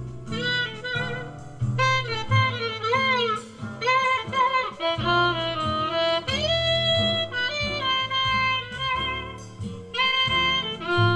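Jazz with a lead saxophone line over bass, played back through an old CORAL EX-102AV passive speaker whose crossover has been fitted with Orange Drop capacitors. The sound is picked up by a microphone in front of the speaker.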